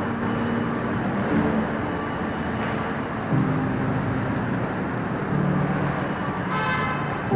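Street traffic noise, with vehicle horns sounding in short blasts over a steady rumble; one brief, brighter horn blast near the end.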